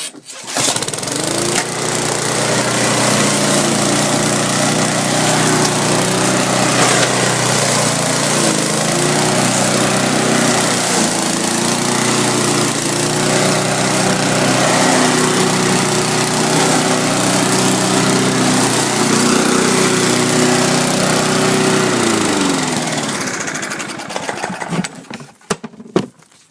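Petrol walk-behind lawn mower starting about half a second in and running steadily while chopping lucerne hay into mulch. Its engine pitch dips briefly twice. It is shut off and spins down near the end.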